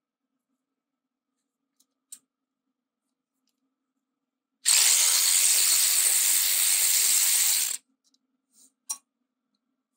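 Cordless ratchet running for about three seconds, spinning out a front brake caliper bolt, then stopping abruptly. Short clicks of the socket going onto the bolt come before and after.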